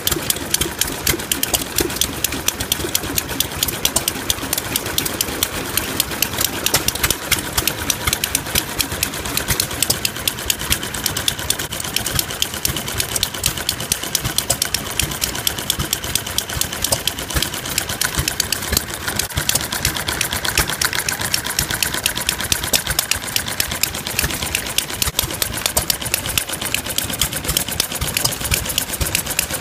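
Small homemade four-stroke overhead-valve gasoline engine running steadily, a fast, even clatter of firing strokes and valve gear. It has no governor, so it runs continuously instead of hitting and missing.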